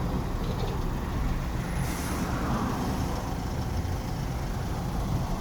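City street traffic: a steady low rumble of passing vehicles, with a brief hiss about two seconds in.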